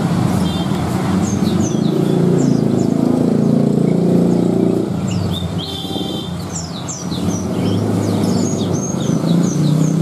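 Many caged small birds chirping and twittering in quick short calls, over the low steady rumble of passing motorbike traffic that is loudest in the first half.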